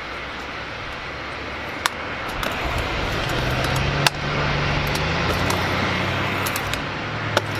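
Stunt scooter wheels rolling on skatepark concrete, a steady rolling noise, with three sharp knocks of the scooter striking the ground: about two seconds in, about four seconds in, and near the end. A low steady hum comes in about three seconds in.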